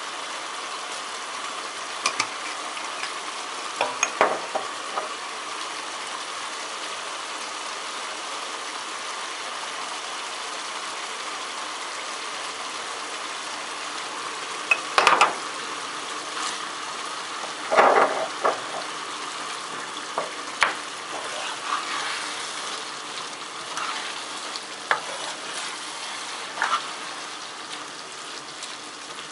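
Minced meat and onions sizzling steadily in a frying pan, with occasional knocks and scrapes as a wooden spoon stirs them, the loudest about halfway through.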